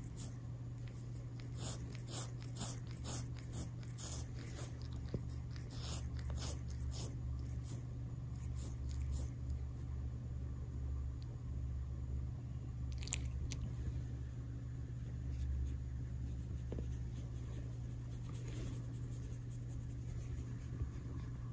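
Calico cat licking a person's skin right at the microphone: a run of quick wet licks, about two a second, that thin out to a few scattered ones after the first seven or eight seconds, over a steady low hum.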